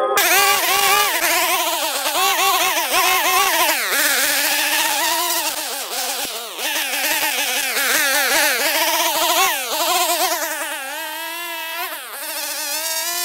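Stihl FS130 string trimmer running, its engine pitch rising and falling as the throttle is worked and the line cuts. The pitch steadies in the last second or so.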